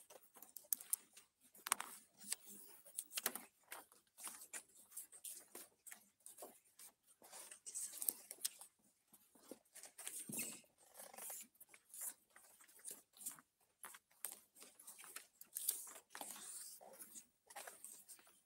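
Scattered soft rustles of paper and light clicks, from paper ballots and pens being handled and the ballots being collected.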